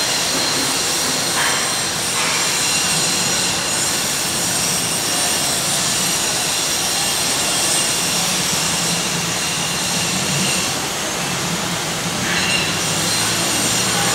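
ACE SES 15 semi-electric stacker's hydraulic forks being lowered down the mast: a steady whooshing noise with a low hum that grows stronger a few seconds in.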